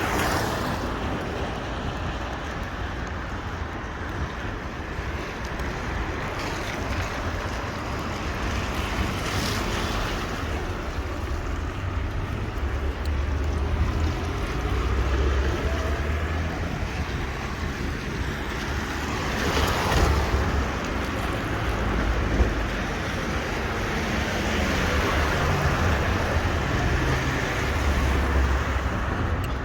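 Rain outdoors with wind buffeting the microphone: a steady hiss over a low rumble, swelling louder about two-thirds of the way through.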